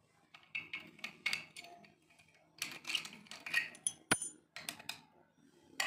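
Steel padlocks and their keys being handled on a concrete floor: a run of metallic clicks and clinks, with one sharp clink and a brief ringing about four seconds in as keys are set down.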